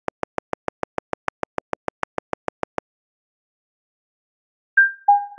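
Rapid, evenly spaced synthetic clicks from a Max/MSP typing patch, about seven a second for nearly three seconds, one click per letter as a title is typed out. After a pause, bell-like pitched plinks begin near the end, each struck and then dying away, jumping between high and middle notes.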